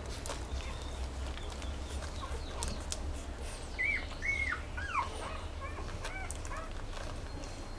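A dog whining in a run of short, high, arching cries, starting about four seconds in, over a steady low hum.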